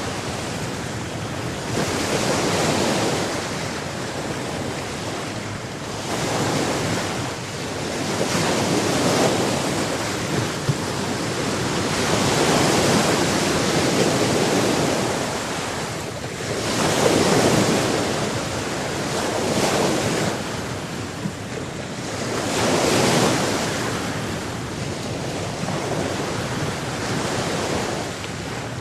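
Ocean waves breaking and washing ashore in a continuous rushing surf, swelling and ebbing every few seconds, with wind buffeting the microphone.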